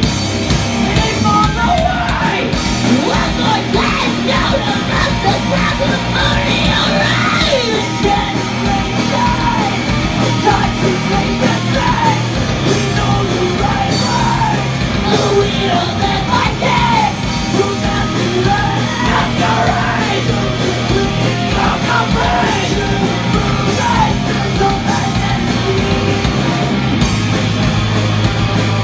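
Rock band playing live, loud and heavy: shouted, yelled vocals over bass guitar, electric guitar and drums.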